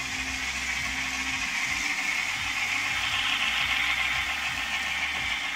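N scale model steam locomotive and passenger cars running up a helix: a steady whir from the small motor and the wheels on the rails, growing a little louder as the train passes close about three seconds in.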